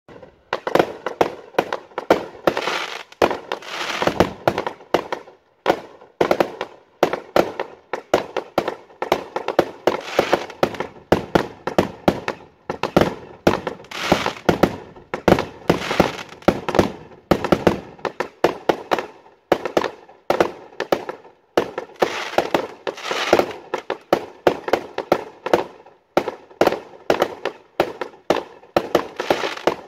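Aerial fireworks bursting in rapid succession, several sharp bangs a second with crackle after them, going on without a break.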